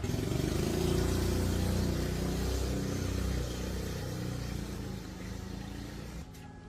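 A motor vehicle engine running close by, loudest at first, then fading and stopping about six seconds in.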